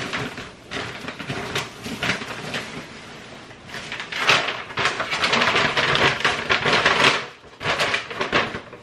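Paper grocery bag being handled and opened: crinkling and rustling paper, densest for a few seconds in the middle, with scattered knocks and clicks of items being packed.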